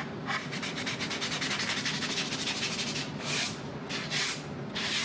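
Wooden cutting board being sanded by hand: a run of quick, short scrubbing strokes, then three longer, louder strokes near the end.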